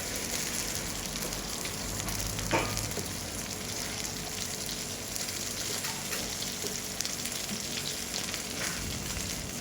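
Food sizzling in hot oil in a pan, a steady crackling fry, with one brief louder sound about two and a half seconds in.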